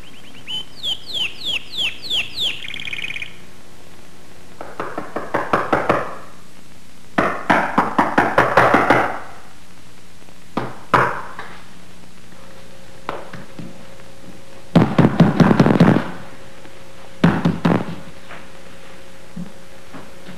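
Rapid, heavy knocking on a door, coming in repeated bursts of many quick blows, the loudest about fifteen seconds in. A short run of high falling chirps comes before the knocking, near the start.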